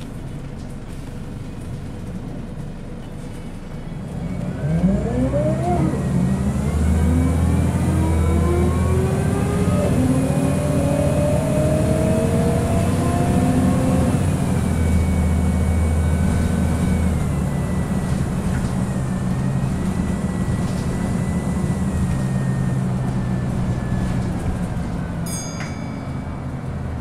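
Scania L94UB bus heard from inside the saloon. At first it runs low and steady. About four seconds in it pulls away, and the engine and the loud whine of its ZF Ecomat 4-speed automatic gearbox rise in pitch through several gear changes. It then settles into a steady cruise with a slowly falling gearbox whine.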